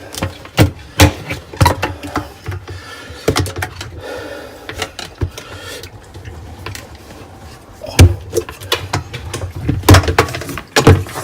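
Irregular sharp clicks and knocks of plastic dishwasher parts being handled and unclipped during disassembly, loudest about eight and ten seconds in.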